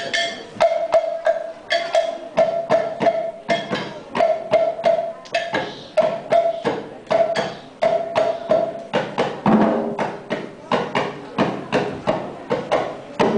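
Hand percussion played live in a steady rhythm: about three sharp strikes a second, many with a short ringing tone at one pitch. In the second half, lower drum hits join in and grow louder.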